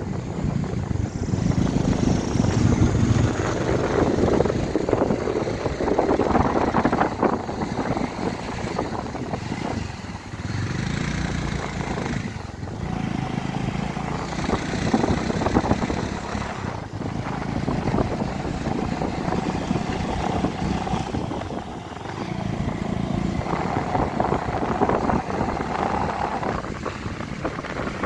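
Motorcycle engine running on the move, with wind rushing over the microphone.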